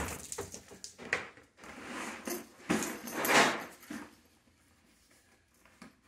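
Handling noise from tools and plastic parts being picked up and moved about: a few irregular scrapes, rustles and clicks, falling quiet about four seconds in.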